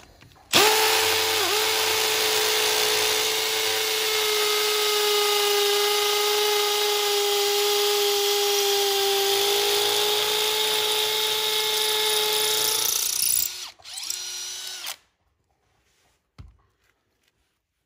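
Cordless 18-volt hammer drill boring a 100 mm injection hole into a brick wall's mortar joint. The motor runs with a steady high note for about twelve seconds, then gives a short, lower run before it stops.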